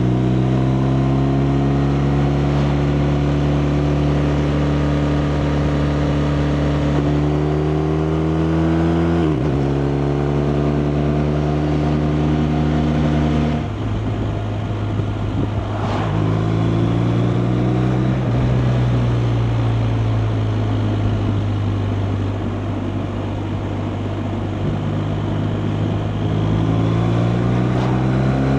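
BMW R 1250 RT's boxer-twin engine under way, pulling up through the gears: the pitch climbs steadily and drops sharply at upshifts near the start and about nine seconds in. Around fourteen seconds the throttle eases and the engine note goes rougher and less distinct, then it picks up and climbs again, with another gear change near the end.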